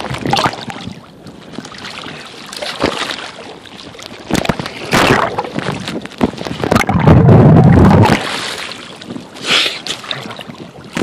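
Small waves sloshing and splashing against a handheld camera held at the sea surface, in irregular surges with crackly handling noise, and a loud low rumble for about a second past the middle.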